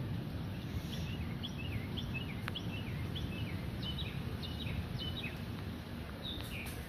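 Steady low rumble of storm wind and rain, with a bird's short high chirps repeated about twice a second for several seconds.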